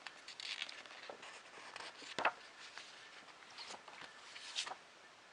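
Magazine pages being handled and turned: soft paper rustling with a few sharper snaps and taps, the loudest about two seconds in.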